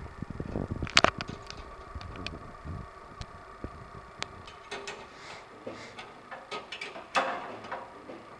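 Scattered small metallic clicks and knocks from a copper tube's flare nut being fitted and turned by gloved hand onto a brass valve fitting, with one sharp click about a second in and a louder clatter near the end, over a faint steady hum.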